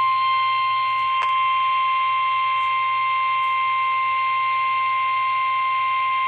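NOAA Weather Radio warning alarm tone: a single steady 1050 Hz tone held without a break, signalling that a severe thunderstorm warning is about to be broadcast.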